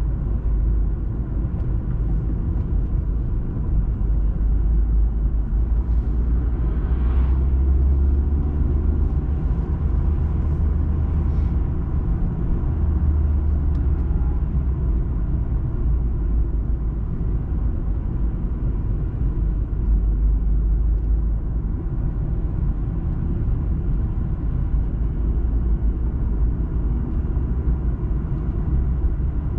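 Steady low rumble of a car being driven, engine and tyre noise heard inside the cabin through a dashcam's microphone.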